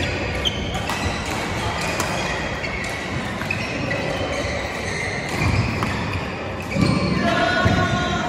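Badminton rally: racket strikes on the shuttlecock as sharp clicks, with court shoes squeaking on the court floor, busiest near the end, in a reverberant sports hall.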